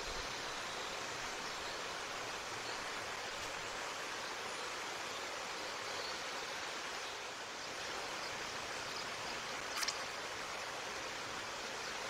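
Steady, even hiss of outdoor background noise, with no bird calls or bill-clattering, and one short sharp click about ten seconds in.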